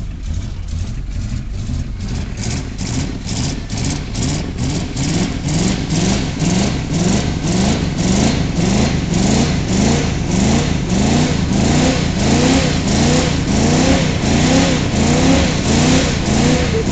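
Off-road Jeep's engine revving hard with its wheels spinning while it sits high-centred on a buried concrete pipe. The sound pulses evenly, about three beats a second, with the pitch swooping up and down, and grows louder toward the end.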